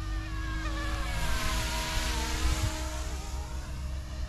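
Small electric RC helicopter (YXZNRC F09-S) flying past: a brushless-motor and rotor whine that grows loudest about two seconds in, its pitch sliding down as it goes by, over a steady low rumble.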